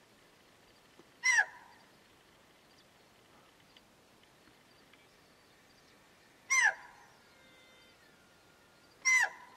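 Axis deer (chital) giving its shrill alarm bark three times, a few seconds apart. Each call is short and falls in pitch.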